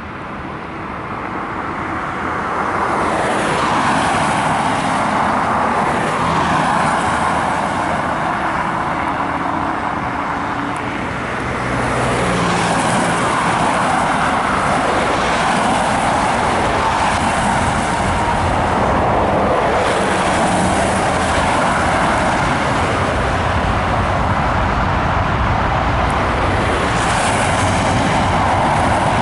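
Boeing 777-200ER's twin turbofan jet engines spooling up to takeoff power. The sound builds over the first few seconds, dips briefly and swells again about twelve seconds in, then holds steady and loud as the jet starts its takeoff roll.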